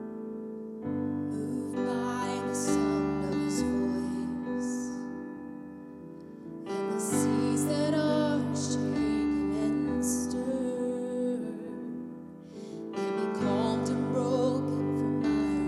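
Slow, gentle piano-led music with sustained chords, rising in phrases about every six seconds and easing off between them.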